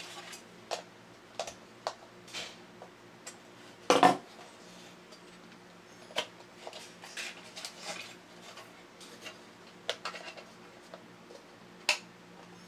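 Small plastic and metal parts of a tin toy robot's head clicking and clattering as they are handled and pried apart with hand tools, with a louder knock about four seconds in and a sharp click near the end.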